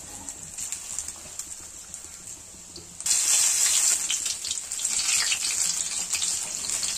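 Batter-coated cauliflower pakoras deep-frying in hot oil in an iron kadhai, a sizzling hiss with crackles. The sizzle becomes suddenly louder about three seconds in, with more pieces in the oil.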